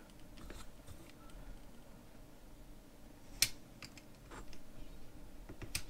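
Faint handling sounds of a pocket bike handlebar and brake lever assembly being worked on a wooden bench, with a sharp click about three and a half seconds in and another near the end.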